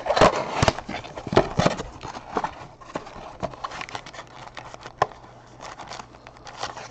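A cardboard trading-card box being handled and opened with gloved hands: quick taps, knocks and scrapes against the cardboard, densest in the first two seconds, then sparser clicks and rustles as the flaps are pulled open.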